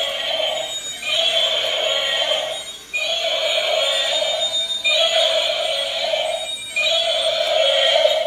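Electronic sound from battery-operated toy animals: a buzzy synthesized tone that loops about every two seconds, each time with a brief break.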